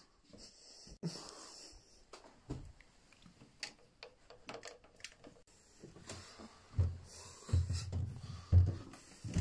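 Rustling and clicks as a phone is handled while someone walks. In the last few seconds come four heavy footsteps less than a second apart, on stairs.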